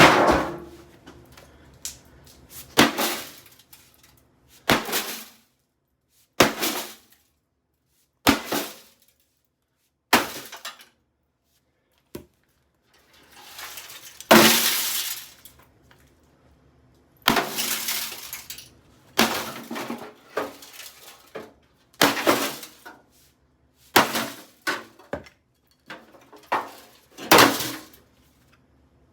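Repeated hammer blows smashing a microwave oven, with glass breaking and clinking. There are about fifteen hard strikes, spaced a second or two apart, some followed by rattling debris.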